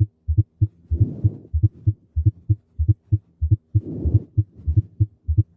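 Heart sounds heard through a stethoscope: low thumps in quick succession, about four a second. They make up a fourth-heart-sound (S4 gallop) example, the sign of forceful atrial contraction into a stiff, hypertrophied ventricle. A soft rushing noise swells twice, about a second in and again about four seconds in.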